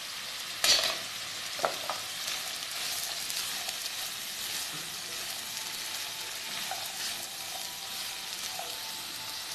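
Chopped vegetables sizzling in hot oil in a wok while being stirred with a spatula. The spatula clatters against the pan about a second in, with two lighter knocks just after.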